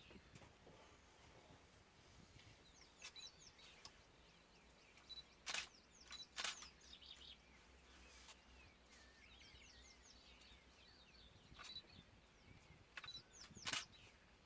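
Faint birdsong: many short chirps and brief repeated high notes. A few sharp clicks stand out, the loudest about five and a half and six and a half seconds in and near the end.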